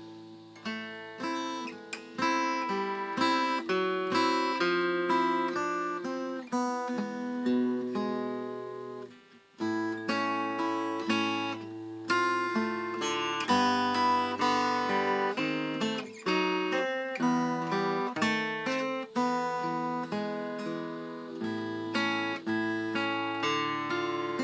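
Solo acoustic guitar playing a run of picked notes and chords. It breaks off briefly about nine seconds in, then carries on.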